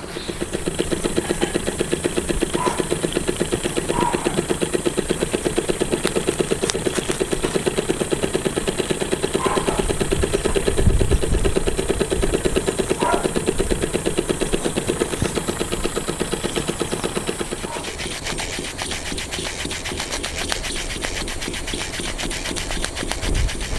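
Small live-steam model engines running, a RETROL Stephenson's link engine and Watt's beam engine, with a rapid, even beat and a steady high hiss. The hiss drops away about two-thirds of the way through while the beat goes on.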